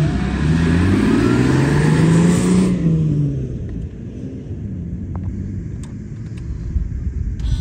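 Off-road pickup truck engines revving: for the first few seconds a loud engine rises and falls in pitch with a hiss of tyres on dirt, then after a sudden change a quieter engine revs unevenly with a few light clicks.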